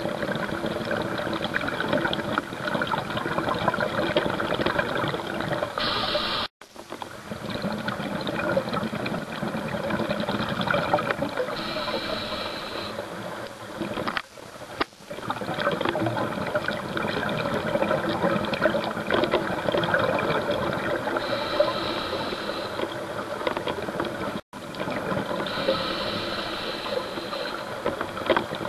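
Continuous bubbling and gurgling of scuba regulator exhaust, heard underwater through a camera housing, with a few short hisses now and then. It cuts out suddenly for an instant twice.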